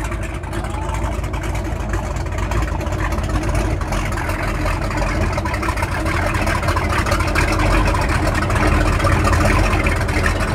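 Outboard boat motor running at low speed, a steady low rumble that grows gradually louder.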